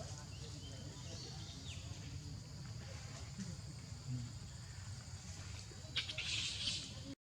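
Outdoor ambience with a steady high-pitched insect drone, like crickets, and a brief scratchy rustle about six seconds in.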